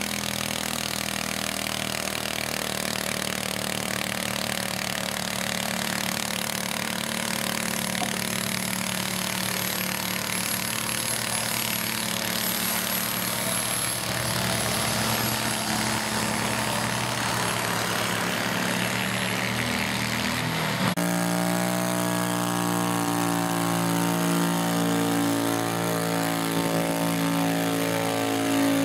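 Small garden-tractor engine running at a steady speed while working with a weight-transfer sled on a pulling track. About two-thirds of the way in, the sound cuts abruptly to another engine running steadily at a different pitch.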